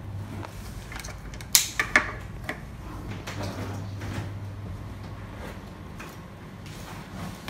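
Luggage being handled: a few sharp clicks and knocks, the two loudest about one and a half and two seconds in, over a steady low hum.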